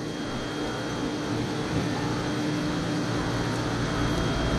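A steady mechanical drone with a constant hum and a low rumble that swells slightly in the second half.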